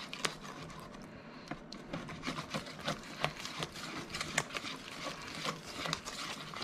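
Wire whisk beating batter in a stainless steel bowl: rapid, irregular clicking and scraping of the tines against the metal, a little busier from about two seconds in.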